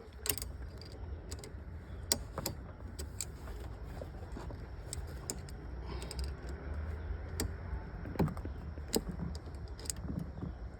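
Irregular small metallic clicks and taps as parts of a battery kill switch are handled and fitted onto a car battery terminal, over a low steady rumble.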